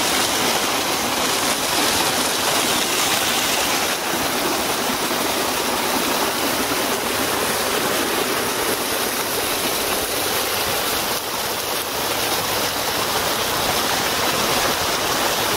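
Hot spring water rushing and splashing down over rocks in a steady, unbroken rush.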